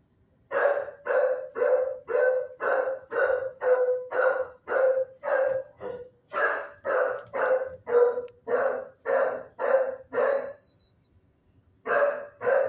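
A dog barking steadily, about two barks a second, in a long unbroken run; after a short pause it barks twice more near the end.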